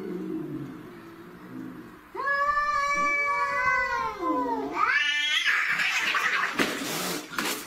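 Two domestic cats caterwauling in a standoff: a low, drawn-out growling moan, then a loud, long yowl whose pitch sags and climbs sharply. About five and a half seconds in it breaks into a harsh burst of screeching and scuffling as the cats start fighting.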